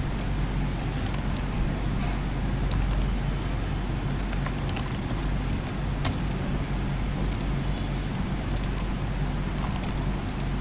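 Computer keyboard being typed on in irregular runs of keystroke clicks, with one sharper click about six seconds in, over a steady low hum.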